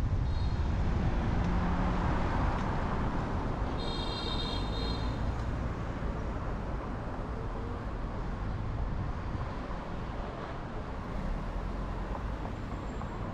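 City street traffic: cars driving through an intersection, a steady rumble of engines and tyres. A brief high-pitched tone cuts in about four seconds in.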